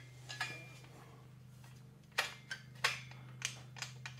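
Metal parts being handled as an M8 bolt and plastic spacer are fitted into a table saw's steel bracket: a few sharp clicks and clinks, most of them in the second half, some ringing briefly.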